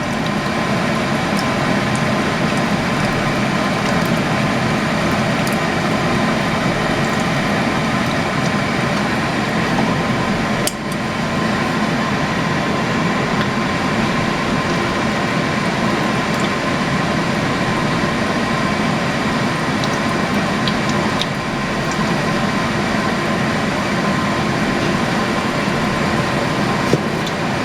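Water from a jar of home-canned potatoes being poured slowly into a heating pot of flour, a steady liquid pour over a constant mechanical hum, with a light clink of the glass jar.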